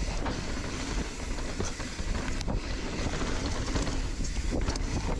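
Heavy wind buffeting on the microphone, a steady low rumble, with scattered sharp clicks and rattles through it.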